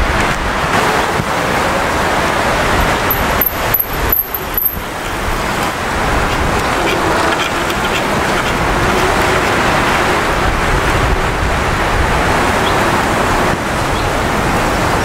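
Steady rush of road traffic noise, with a few short clicks about four seconds in.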